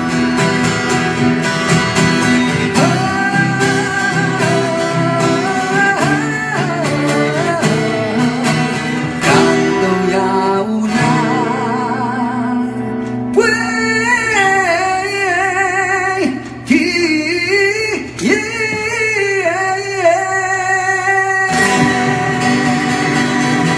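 Two acoustic guitars strummed while a man sings a ballad in Taiwanese Hokkien with strong vibrato, live through a microphone. The singing comes in after a few seconds and stops near the end, leaving the guitars ringing on.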